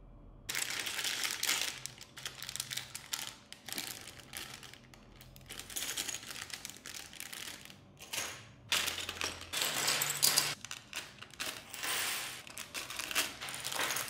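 Plastic packaging of a building-brick set crinkling and rustling in repeated bursts, with small clicks, as the set is unboxed.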